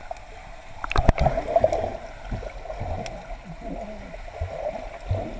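Swimming-pool water heard from under the surface: muffled churning and bubbling as a child plunges and kicks nearby, with a couple of sharp knocks about a second in.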